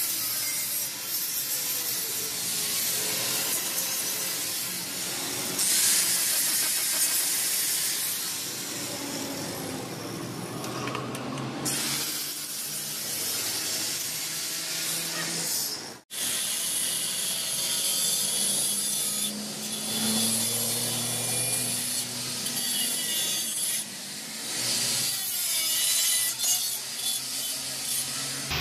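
Electric angle grinder with an abrasive disc grinding welded joints on a square steel tube frame: a continuous high, hissing scrape of disc on metal that rises and falls as the pressure changes. It cuts out for an instant about halfway through.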